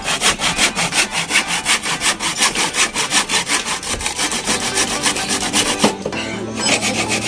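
Hand saw cutting through a wooden beam, in quick, even back-and-forth strokes. The sawing breaks off briefly about six seconds in, then starts again.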